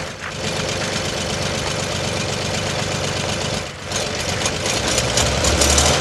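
Tractor engine running steadily. It breaks off briefly a little before four seconds in and comes back, with a heavier low rumble near the end.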